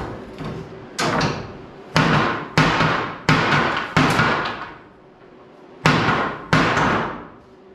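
Hammer blows on the wooden bed boards of an old truck, knocking them loose: about seven sharp strikes at an uneven pace, each with a ringing tail, with a pause of about two seconds past the middle.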